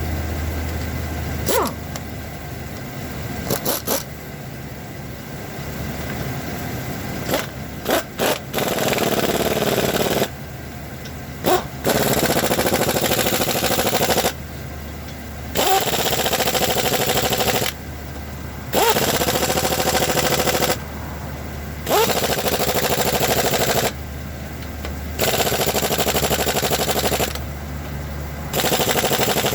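Impact wrench running in about seven bursts of two to three seconds each, every burst starting with a rising whine and then hammering steadily: lug nuts being run on and tightened as a wheel goes back on a car.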